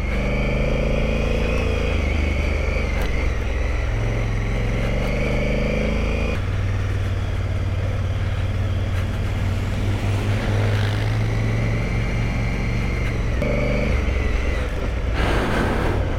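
Big adventure motorcycle's engine running steadily while riding a muddy dirt trail, heard from the rider's seat, its note stepping to a new pitch with throttle or gear changes about six seconds in and again near the end. A short rush of noise comes just before the end.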